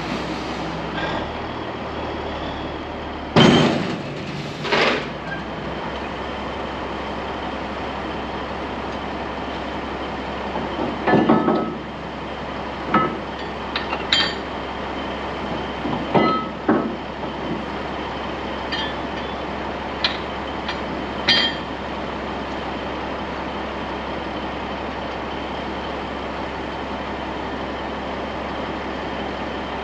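Diesel truck engine idling steadily, with a series of sharp metallic clanks and knocks around the trailer. The loudest clank comes about three and a half seconds in, and the knocks thin out after about twenty-two seconds.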